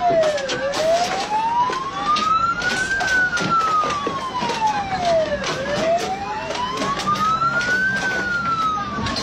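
Wailing siren, rising and falling slowly in pitch with each cycle lasting about five seconds, over many sharp knocks and clatters.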